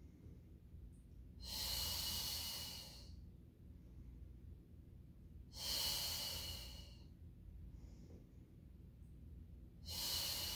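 A woman breathing audibly, three long breaths about four seconds apart, paced with a Pilates leg exercise.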